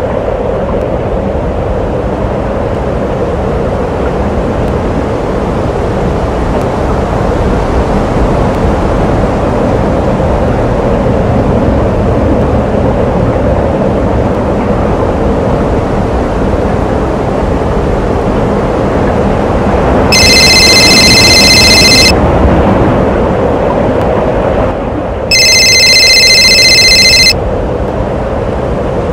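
A loud, steady noise throughout. Over it a telephone rings twice, each ring about two seconds long, the first starting about twenty seconds in.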